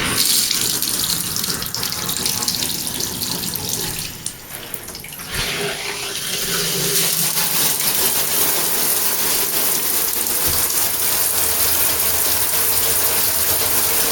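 Shower massage head spraying water, its flow-restricting O-ring removed to give more flow. The spray starts suddenly, dips briefly about four seconds in, then runs on steadily.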